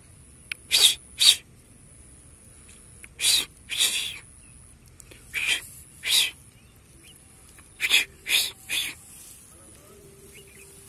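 A person hissing short 'psst-psst' sounds to call a cat's attention, about nine quick hisses, mostly in pairs, every couple of seconds.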